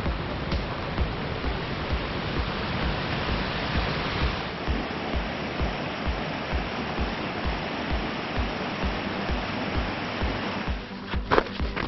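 Rushing mountain creek whitewater, a steady rush of water, under background music with a steady beat. Near the end the water noise drops away and a few sharp taps come in.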